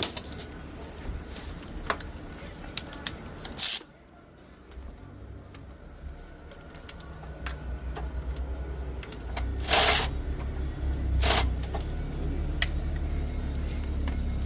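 Scattered clicks and clinks of hand tools working bolts loose on a car's turbocharger, with a few short hissing bursts and a low hum that grows louder in the second half.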